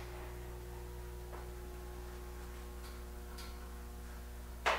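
Steady low electrical hum of workshop equipment, with a few faint ticks and a short scraping or clattering noise just before the end. No welding arc is heard.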